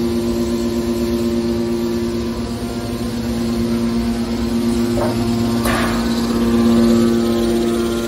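Hydraulic power unit of a scrap metal baler, its electric motor and hydraulic pump running with a steady, constant-pitch hum. A couple of short metallic knocks come about five and six seconds in.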